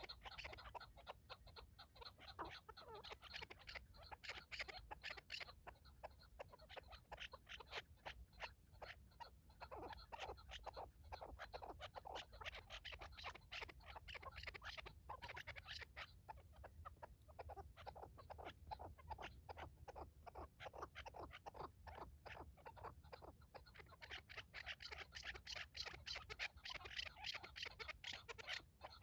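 Chukar partridge calling, faint: long runs of rapid, repeated short notes that grow denser near the end.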